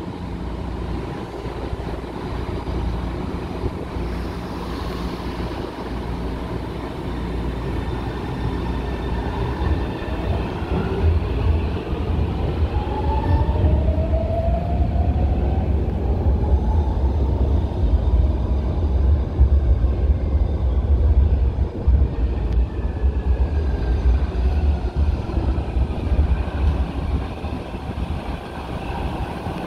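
Electric metro trains on São Paulo Metro Line 3: one pulls out of the station with a rising motor whine over a low rumble, loudest around the middle. Later another train runs in and brakes, its whine falling in pitch as it slows to a stop.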